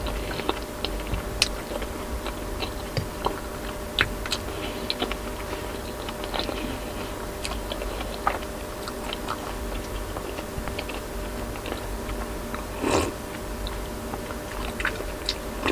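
Close-miked mouth sounds of a person chewing food: many small wet clicks and smacks. About thirteen seconds in comes a short, louder sip of soup broth from a glass bowl.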